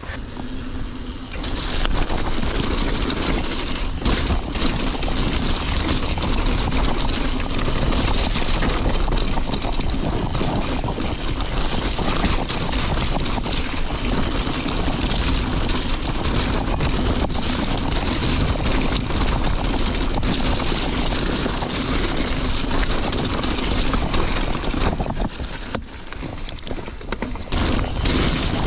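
Wind noise on the camera microphone and the rolling rattle of a mountain bike descending a wet, stony track. It begins about a second and a half in, once the bike gets going, and eases off briefly near the end.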